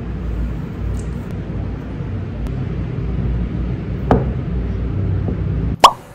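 Steady low rumble of background noise, with a knock about four seconds in and a louder, sharp knock near the end, after which the rumble cuts off suddenly.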